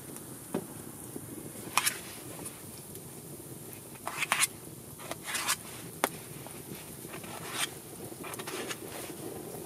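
A knife cutting raw potatoes by hand, the chunks dropping into a stainless steel camp pot. A handful of short, sharp cuts and clicks come at uneven intervals over low, steady background noise.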